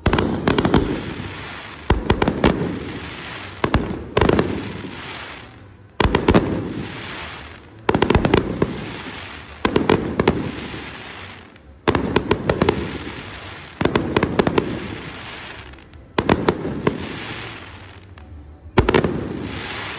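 Aerial fireworks shells bursting: about eleven loud bangs, roughly one every two seconds, each a cluster of sharp cracks followed by a fading rumble.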